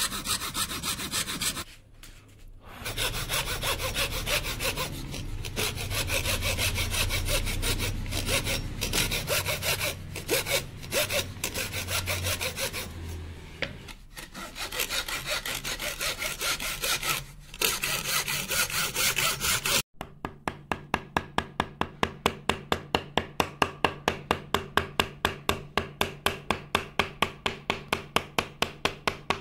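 Teak wood being hand-sawn in rasping back-and-forth strokes, with short pauses. After a sudden break about two-thirds of the way in, the strokes run very evenly at about four a second.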